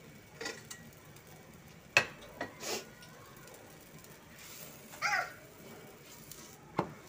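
Kitchen utensils handled at a tawa on the stove: a sharp clink about two seconds in, the loudest sound, with a few softer knocks and rustles around it and a faint sizzle underneath.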